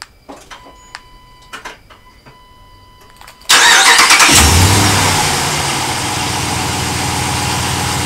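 A few faint clicks, then about three and a half seconds in the Ram 1500 pickup's engine starts by remote start: it cranks, flares loudly as it catches, and settles into a steady idle.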